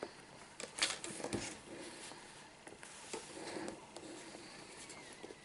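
Handling of an Apple TV's white cardboard box: a couple of light knocks about a second in as the box is turned over and set down, then soft rustling and tapping as the cardboard inner tray is handled.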